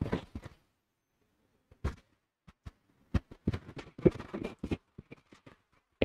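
Scattered light clicks and knocks, with a denser run of them about three to five seconds in.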